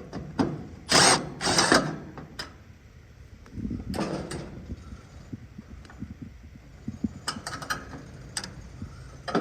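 Metal scraping, rattling and clicking as a part is worked loose inside an air conditioner condenser's electrical panel, most likely the run capacitor being unfastened; two loud scrapes come about a second in, another near the middle, then scattered clicks.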